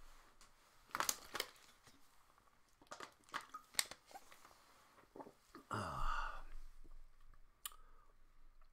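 Faint handling sounds: a few sharp clicks spread through, and a brief crinkling rustle about two-thirds of the way in.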